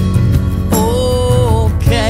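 Music: a song with a steady accompaniment, and a singer holding one long note through the middle.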